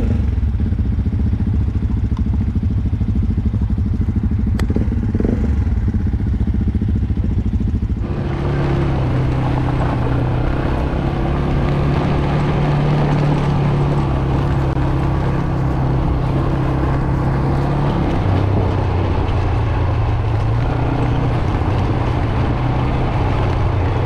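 ATV engine idling, then about eight seconds in pulling away and running steadily along a paved village lane, with the added noise of the ride. The engine note drops a little about eighteen seconds in.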